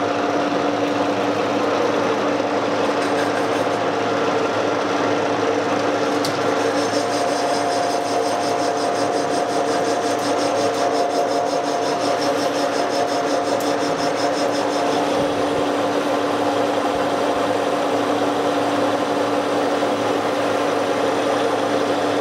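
1K62 metal lathe running steadily, its headstock gearing giving a constant, even hum while the cutter turns a metal ring, starting on the inside diameter. A higher cutting hiss joins from about six to fifteen seconds in.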